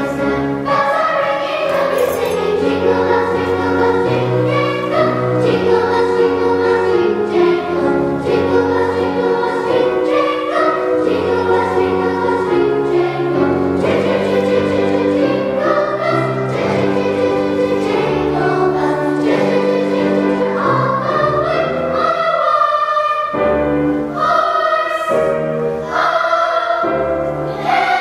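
A girls' choir singing in parts, with held notes that change every second or so, over piano accompaniment with sustained low bass notes.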